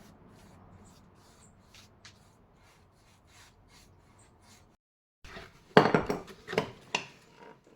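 Faint scattered ticks, then, after a short break about five seconds in, a run of loud clattering knocks and scrapes of hard objects.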